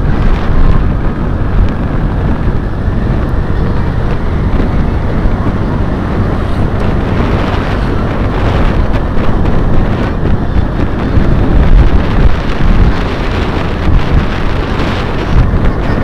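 Wind rushing and buffeting loudly over the microphone of a moving vehicle, with a low rumble of travel noise underneath.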